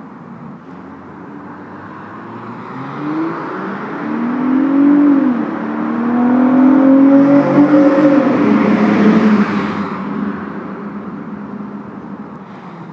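Nissan Altima 3.5's VQ35 V6 with custom exhaust and intake accelerating past at part throttle. The engine note rises, dips briefly about five seconds in, then climbs again, loudest about seven to nine seconds in, then fades as it moves off.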